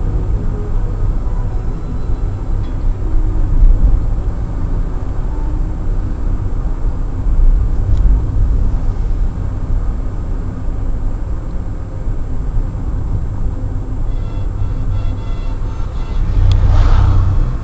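Daihatsu Tanto kei car driving, heard from inside the cabin: a steady rumble of engine and road noise, with a brief rushing swell near the end.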